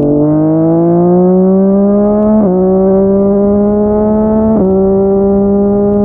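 Yamaha MT-09's inline three-cylinder engine through a Yoshimura R55 slip-on exhaust, pulling hard with its pitch climbing under acceleration. The pitch drops sharply at two upshifts, about two and a half and four and a half seconds in, holding steadier after each.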